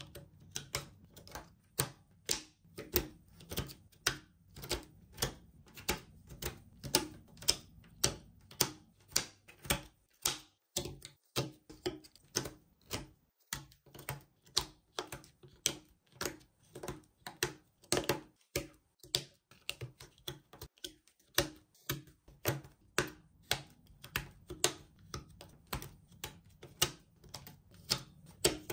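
A steady run of sharp clicks like keys being struck, about three a second, pausing briefly twice, over a faint low hum.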